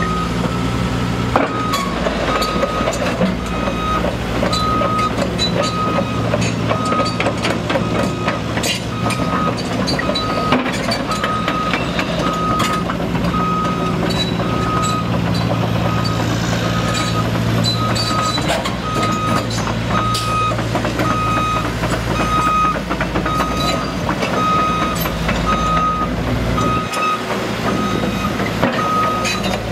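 LiuGong 913FCR excavator's travel alarm beeping steadily about once a second while the machine moves, over its Cummins diesel engine running, with scattered clicks and clanks from the machine.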